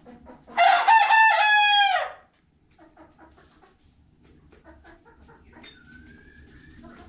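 A rooster crowing once, loud and about a second and a half long, dropping in pitch at the end, followed by faint clucking.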